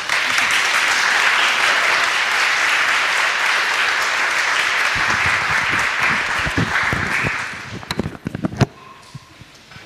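Audience applauding, dense and steady, then fading out about seven and a half seconds in. A few sharp knocks follow near the end.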